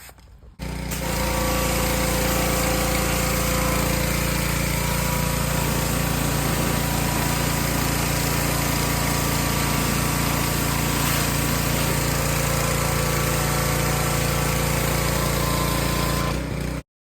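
Pressure washer running steadily, a constant machine drone with the hiss of spray over it; it starts about half a second in and stops abruptly near the end.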